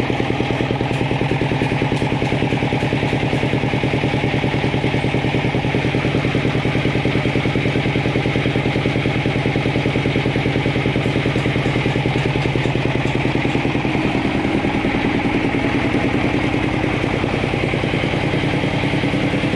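Single-cylinder Chinese horizontal diesel engine running steadily with an even, rapid firing beat. Its tone shifts a little about two-thirds of the way through.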